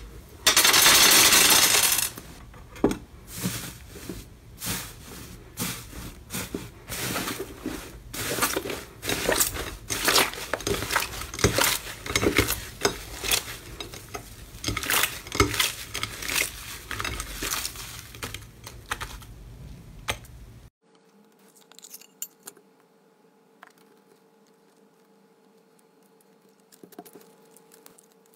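Crumbly, fluffy green slime being pressed, torn and squished by hand in a glass bowl: dense sharp crackling and tearing, with a loud rushing hiss near the start as the puffed-up slime mound is pressed down. About 21 s in it cuts to a much quieter clip of glossy slime being stretched, with only a faint steady hum and a few soft clicks.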